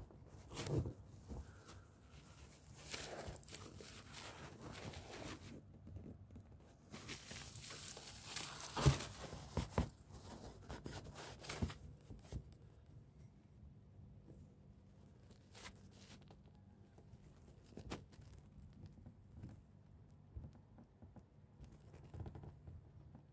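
Faint crackling, tearing rustles of a European hornet chewing and working the paper of its nest, in two longer spells with a few sharp clicks between.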